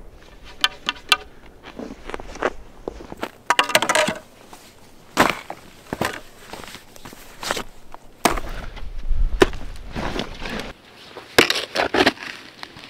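Snow crunching in a string of sharp, irregular strokes, roughly one every second or so.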